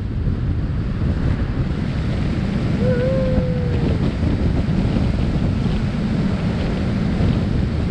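Wind buffeting the microphone of a camera on a moving vehicle: a dense, steady low rumble. About three seconds in, a single held tone lasts about a second and drops away at its end.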